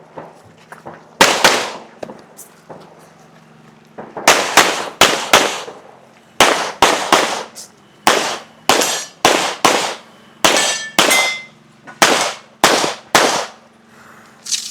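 Rapid gunfire from competition shooting: strings of sharp shots, several a second, each crack with a short ringing tail, broken by brief pauses as the shooter moves or reloads.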